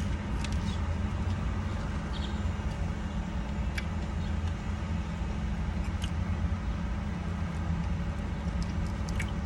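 Steady low rumble like a vehicle engine running at idle, with a few faint clicks over it.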